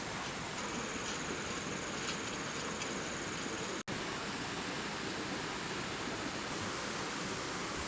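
Steady rushing water noise, with a faint high steady tone over the first half. The sound cuts out for an instant just under four seconds in, then carries on unchanged.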